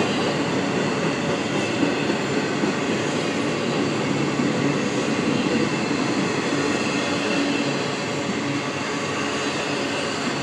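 Freight train rolling past with a steady rumble of cars on the rails and faint wheel squeal, easing slightly near the end.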